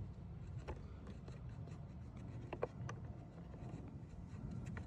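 Small clicks and light scraping of plastic caravan lock parts and a spring being handled and fitted together, the sharpest click about two and a half seconds in, over a steady low rumble.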